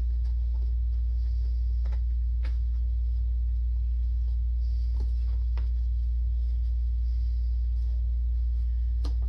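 A steady low hum, with a few faint taps and rustles from a cardboard shipping box being handled.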